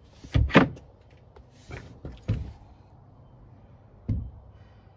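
Wooden camper-van cupboard units being handled: a few knocks and thuds of the plywood with some scraping, the loudest pair about half a second in and a last knock near the end.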